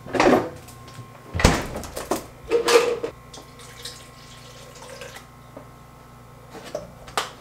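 A few sharp knocks and clatter from kitchen items being handled, then water poured from a plastic bottle into a plastic shaker cup for about two seconds, with a few small clicks near the end.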